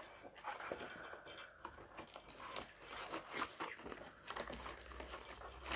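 Irregular small clicks, taps and crinkly rustles of old locks and their paper and plastic packaging being handled.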